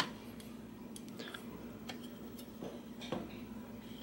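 A few faint clicks and light ticks as a steel shift cable is threaded by hand through the bottom-bracket cable guide and up behind the seat tube, over a faint steady hum.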